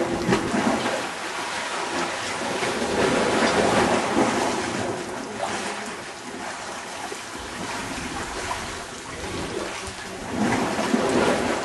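Wind rushing over the microphone together with sea waves washing against the rocks, a steady noise that swells and eases.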